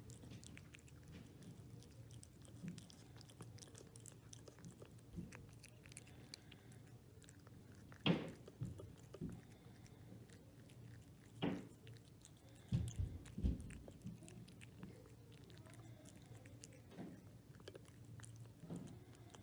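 A cat chewing wet pâté cat food from a stainless steel bowl: faint, wet chewing and mouth sounds, with a few louder knocks around the middle.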